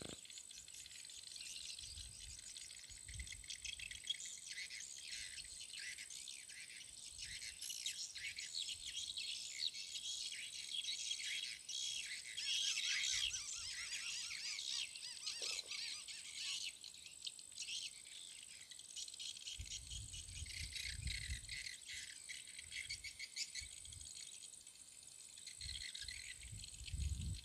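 Insects chirring steadily with a high, even whine among them, and birds chirping. Two short low rumbles come through, about twenty seconds in and near the end.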